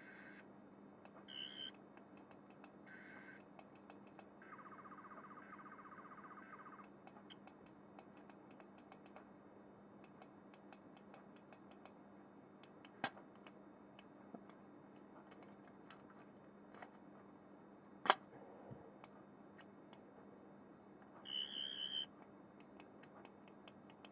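Toy sonic screwdriver's electronic sound effects played through its small speaker: a few short high beeps, a pulsing buzzy tone lasting about two seconds, and a long run of sharp irregular clicks, with another beep near the end.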